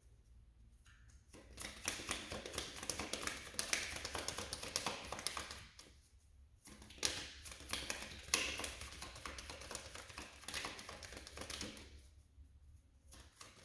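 A deck of reading cards being shuffled by hand: a dense rapid patter of card clicks in two long bouts, with a short pause about six seconds in.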